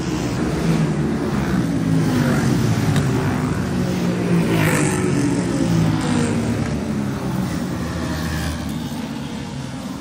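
Several motorcycles riding past one after another, their engines running together with pitches rising and falling as each bike passes.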